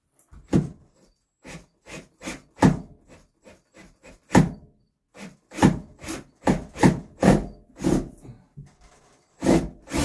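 Irregular wooden knocks and thuds, a couple a second, as glued 2x3 lumber pieces of the frame are handled and knocked into place.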